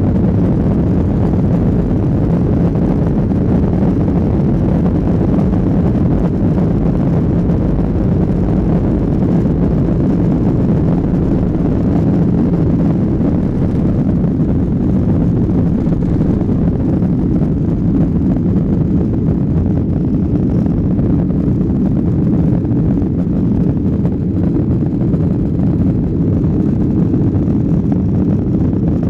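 Steady low cabin noise of a jet airliner in flight, the engines and rushing air heard from inside the cabin.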